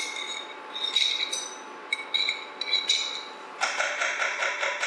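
A metal fork clinking and scraping against the rim and inside of a glass jar as thick Alfredo sauce is worked out of it, the clinks ringing briefly. Near the end comes a quick run of rapid rattling taps.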